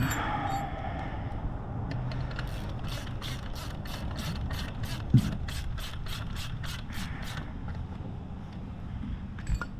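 Hand ratchet wrench clicking in a steady run of about three clicks a second while bolts are snugged down, with one dull thump about halfway through.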